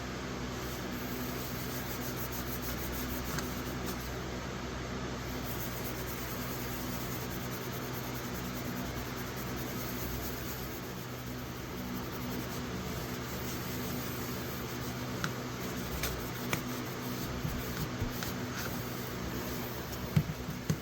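Steady hum and hiss of a fan or small electric motor, with a few light taps in the last few seconds.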